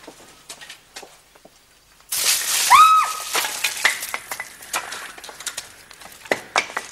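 Fire in a clay stove flaring up with a sudden loud hiss about two seconds in, then crackling and popping as the hiss slowly dies down. A short high tone rises and holds near the start of the flare, and firewood knocks lightly in a wicker basket.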